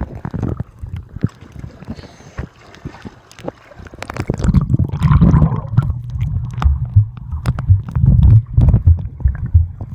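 Muffled underwater sound from a camera held under the surface of a swimming pool: many clicks and knocks, with bubbling and a heavy low rumble of water movement that gets much louder about four seconds in.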